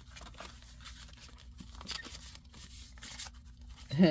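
Soft rustling and sliding of paper and card as the pages and paper pocket of a handmade junk journal are handled, with small scattered clicks. A short vocal sound comes at the very end.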